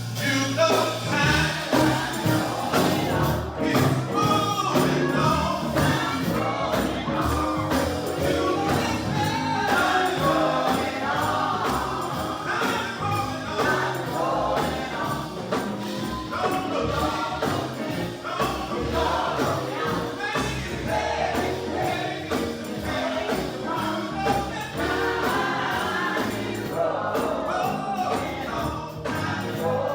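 Gospel choir singing a song together.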